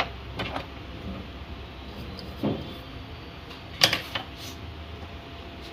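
Small plastic-and-metal clicks and knocks as a phone's circuit board and housing are handled on a bench, the loudest click about four seconds in, over a steady low hum.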